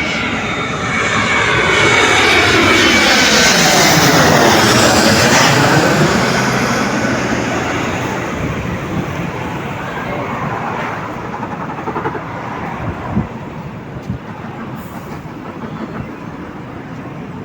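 Airliner engines passing by: the noise swells to its loudest about four seconds in, then slowly fades away.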